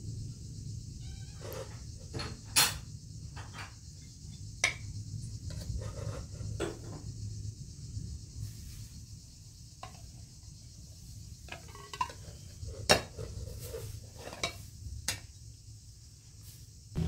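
Metal ladle and glass plates clinking and knocking as rice is served from a steel pot, a scattering of sharp separate clinks with a few louder knocks, over a steady low hum.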